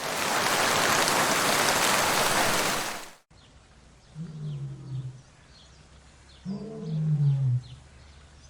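About three seconds of loud, even hiss, which cuts off abruptly. Then a lion gives two deep roars, each falling in pitch and lasting about a second, spaced about two seconds apart. Faint bird chirps sound in the background.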